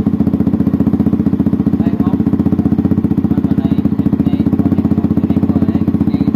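Yamaha YZF-R15M's single-cylinder 155 cc engine idling steadily through an SC Project slip-on exhaust, with an even, pulsing exhaust note.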